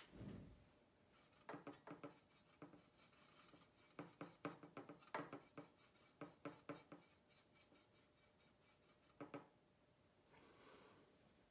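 Light, quick taps and scrapes of watercolor painting tools against a hard surface, coming in three short clusters: two longer runs and a brief pair near the end.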